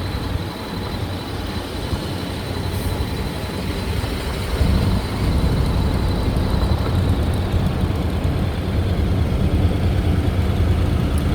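Vehicle running with a steady low rumble that grows louder about four and a half seconds in, during disembarkation from a car ferry.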